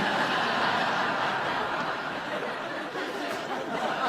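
Sitcom studio audience laughing at a punchline, a steady wash of many people's laughter.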